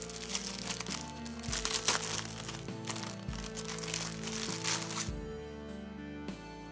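Clear plastic bag crinkling and rustling as an e-book case is worked out of it, stopping about five seconds in, over background music.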